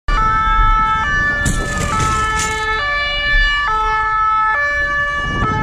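Emergency sirens from an approaching fire engine: a two-tone siren stepping between a high and a low note about once a second, overlaid with a wailing siren that slowly rises and falls.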